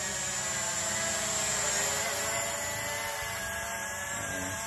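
TC-3 toy quadcopter's small motors and propellers whining steadily as it hovers, the pitch wavering slightly as it is pushed about by gusts. Wind buffets the microphone underneath.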